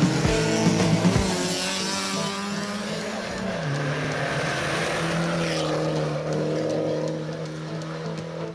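Rally car engine running hard at full throttle on a hill-climb stage, its pitch shifting with a gear change about a third of the way through, with a few short pops in the first second or so.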